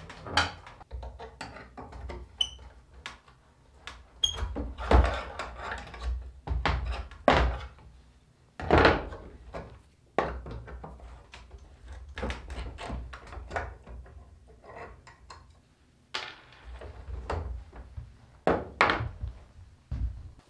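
Irregular knocks, creaks and scrapes of metal on wood as nails are pulled with pliers from a metal bracket on an old chestnut wooden table, with a few louder knocks about five, seven, nine and nineteen seconds in.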